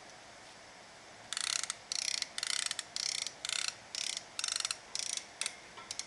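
Hand strap tensioner ratcheting: about nine quick strokes of the handle, roughly two a second, each a burst of rapid ratchet clicks, starting about a second in, as the woven strap is pulled tight through the ladder buckle.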